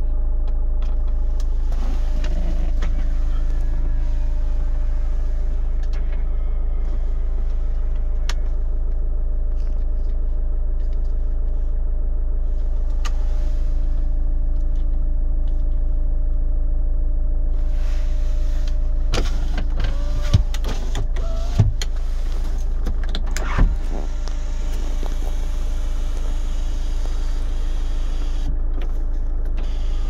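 Steady low idling drone of a Chevrolet Winstorm's engine, heard from inside the cabin. A few sharp clicks and short mechanical noises come between about twenty and twenty-four seconds in.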